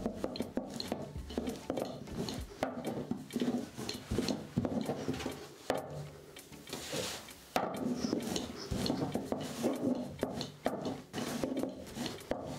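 A rolling pin rolled back and forth over a thin sheet of gözleme dough wound around it on a tabletop: repeated rubbing rolling strokes with soft knocks, and a short lull about halfway through as the sheet is unrolled.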